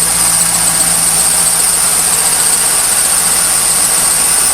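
1998 Trans Am's LS1 V8 idling with a loud, steady high-pitched chirping squeal from the accessory belt: a dry-rotted A/C belt.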